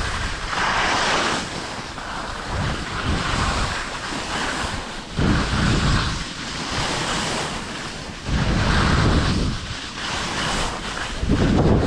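Wind buffeting the microphone in gusts: a loud rushing hiss with a low rumble that swells and drops every few seconds.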